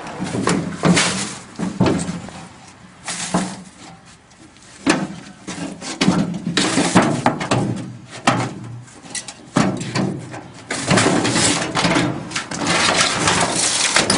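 Scrap metal parts from a water heater (cast aluminum, steel and brass pieces) being handled and knocked together in irregular clatter, with sharp knocks and bursts of rattling.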